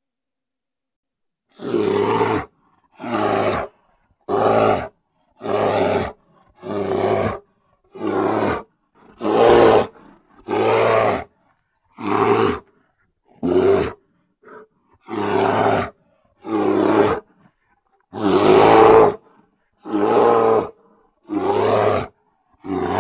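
Grizzly bear roaring: a long run of short, loud roars, about one a second, each separated by a brief moment of silence.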